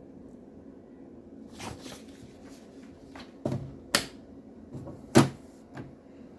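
Sharp PA-6000 electronic typewriter being handled: a series of separate clacks and knocks, the loudest about five seconds in, over a steady low hum.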